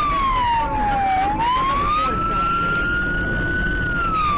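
A siren wailing in a slow cycle. One tone slides down for about a second, swings quickly back up and holds high, then starts sliding down again near the end, over a steady low road rumble.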